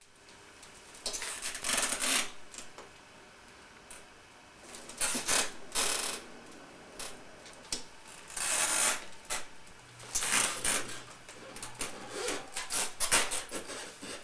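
Small doll stroller creaking and rubbing under the weight of a person sitting in it, in about five separate bouts of scraping with quieter gaps between.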